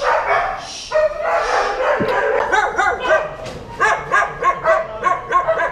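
A dog barking excitedly, really loud. Longer barks come first, then a quick run of short barks in the second half.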